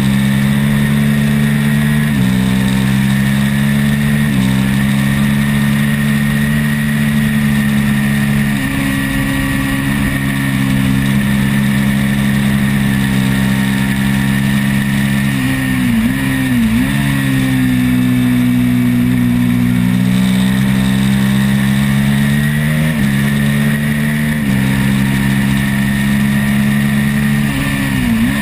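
Twin-cylinder race motorcycle engine, heard onboard, pulling hard at high revs over a rush of wind. The pitch steps through gear changes in the first few seconds, holds steady, then dips sharply and picks up again twice, near the middle and at the end.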